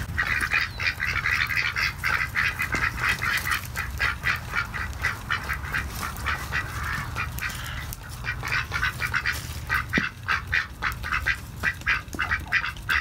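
Domestic ducks quacking in a rapid, continuous chatter, several short quacks a second.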